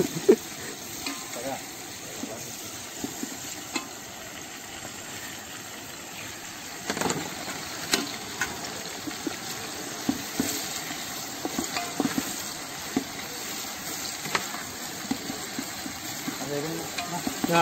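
Sliced onions frying in about half a litre of hot oil in a large aluminium pot, sizzling steadily. A flat spatula scrapes and knocks against the pot as they are stirred, the scrapes coming more often from about halfway through.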